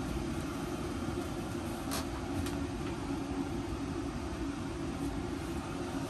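Ryobi ONE+ 18V hybrid forced-air propane heater running: its fan and propane burner make a steady rushing noise with a constant low hum. Two light clicks come about two seconds in.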